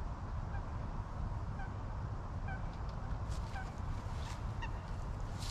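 Water birds on the lake giving short honking calls, about one a second, over a steady low wind rumble on the microphone. A few sharp clicks from handling the fishing rod, the loudest near the end.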